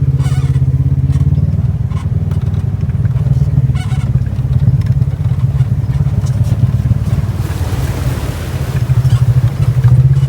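ATV engine running close to the microphone: a steady low drone with some rattling, a little louder near the start and again near the end.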